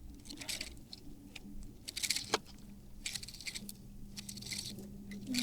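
Light rustling and small metallic clinks come in irregular clusters as a fishing stringer is handled, its cord pulled out, with one sharper click a little over two seconds in. A faint steady low hum runs underneath.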